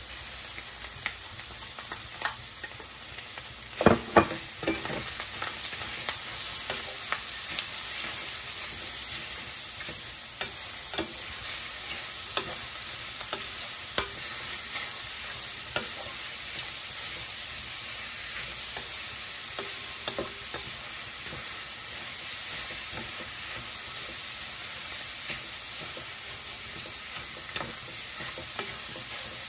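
Shelled clam meat sautéing in hot olive oil with garlic, onion and ginger in a stainless steel pan: a steady sizzle, with a wooden spatula knocking and scraping against the pan as it stirs. The loudest knocks come about four seconds in.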